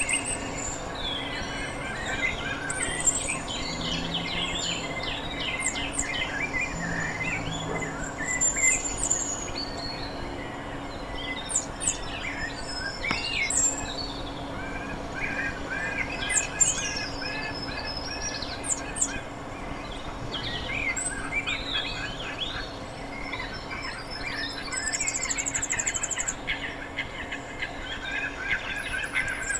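Several wild birds chirping and calling over one another in many short whistled notes and trills, with a rapid high trill near the end. A faint steady low hum runs underneath.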